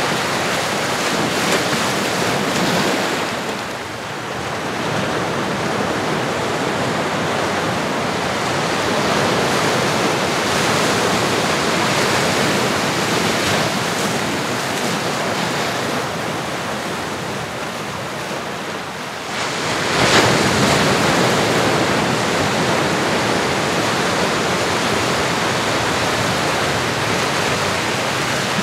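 Ocean waves on a shore: a steady wash of surf that ebbs and swells, with one wave surging in about two-thirds of the way through.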